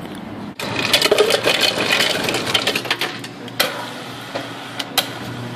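Self-serve soda fountain pouring cola into a paper cup: a fizzing, splashing pour, strongest for the first few seconds and then softer, with a couple of sharp clicks.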